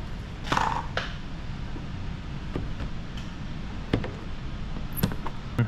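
Light handling sounds of wet paint protection film being worked onto a car's front bumper by hand: a short scrape about half a second in and a few sharp clicks and taps, over a steady low hum.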